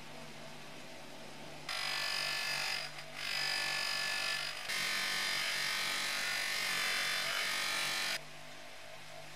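Bench polisher's motor running, its buffing wheel spinning. From about two seconds in until about eight seconds, chrome-plated metal tubes pressed against the wheel make a loud hissing rub, with a short break near three seconds. The rub then falls back to the motor alone.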